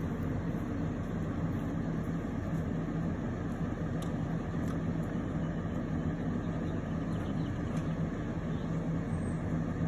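A steady, low machine drone with an even hum, unchanging throughout.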